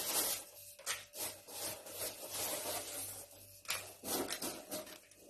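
Popped popcorn rustling and scraping against a plastic bowl as a hand stirs it and it is tipped out into another plastic bowl, in a run of short scratchy rasps.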